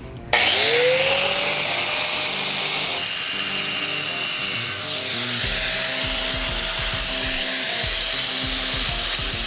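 Angle grinder spinning up about a third of a second in, then running steadily with a high whine as it grinds paint and rust buildup off the lip of a centrifugal pump's volute, clearing it so the impeller can turn. The grinding gets heavier and lower from about halfway through.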